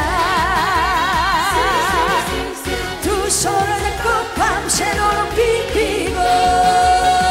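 Korean trot song: a woman sings, holding a long note with wide vibrato for the first two seconds, then carrying on the melody over a steady dance beat. A held instrumental note comes in near the end.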